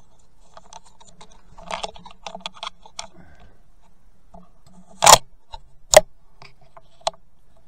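Handling noise on a rifle with a scope-mounted camera: a flurry of small clicks and rustles, then two sharp loud clicks about a second apart and a fainter one a second later.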